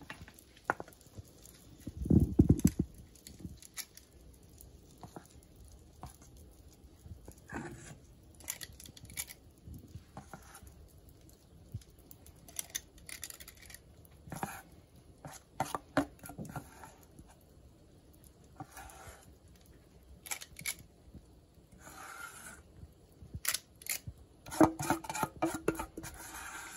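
Metal spoon clinking and scraping against a stainless steel mixing bowl while pancake batter is scooped out, in scattered short clicks. A brief loud low thump comes about two seconds in.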